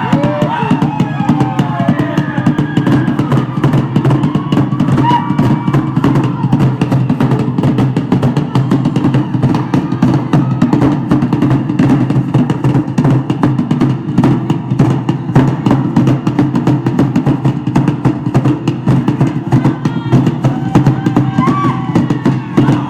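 Fast, continuous drumming from a Polynesian drum ensemble, dense and even, with a few brief high calls near the start and again near the end.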